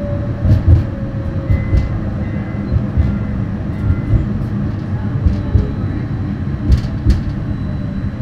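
Inside a Brookville Liberty streetcar running between stops: a steady low rumble of the car on the rails, with scattered knocks and clicks. A faint hum near the start fades out within the first couple of seconds.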